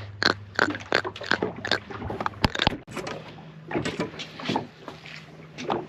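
A grunt fish, just landed, grunting: a series of short, irregular knocking croaks, several a second, with a sharper click about two and a half seconds in.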